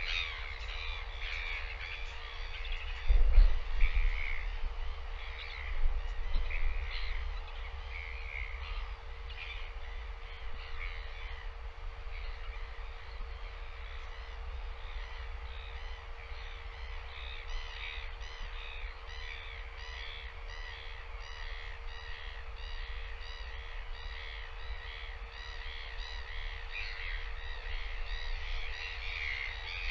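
Many short bird calls repeating without pause over a low rumble and a steady hum, with a loud low thump about three seconds in.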